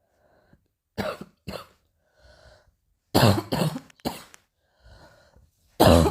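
A person coughing in short fits. There are two coughs about a second in, a run of three near the middle, and another, louder fit starting near the end, with audible breaths drawn in between the fits.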